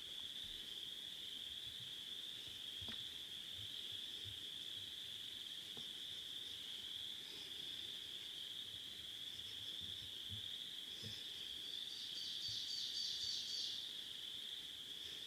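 A steady, high-pitched outdoor chorus of calling animals. A faster pulsing trill joins above it about eleven seconds in and fades out near fourteen seconds, with a few faint ticks.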